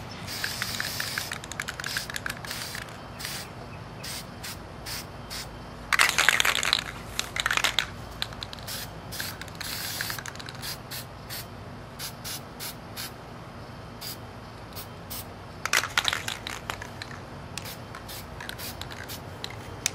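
Aerosol spray-paint can hissing in several short bursts, the loudest about six seconds in and again around sixteen seconds. Between the bursts come runs of short clicks as the can is shaken.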